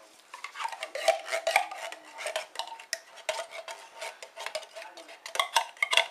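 A metal spoon stirs a thick, creamy noodle casserole mixture in a large metal pot. It makes repeated irregular scrapes and clinks against the pot, and the metal rings faintly.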